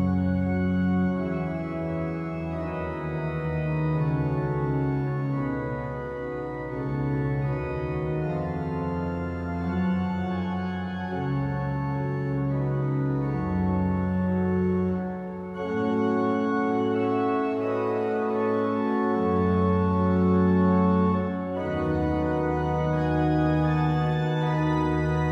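Gloucester Cathedral's pipe organ playing slow, sustained chords over a deep bass line, the harmony shifting every second or two.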